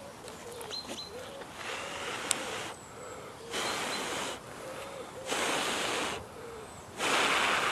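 Several puffs of breath blown onto a glowing ember in a slice of tinder fungus, each about a second long, the last three loudest, to nurse the ember.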